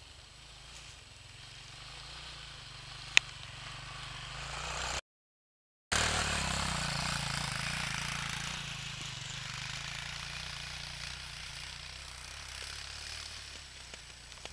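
Bashan 200 quad's engine running as it rides over snow, getting louder as it comes closer. After a brief dropout about five seconds in it is loudest, then fades slowly as the quad moves away. A single sharp click about three seconds in.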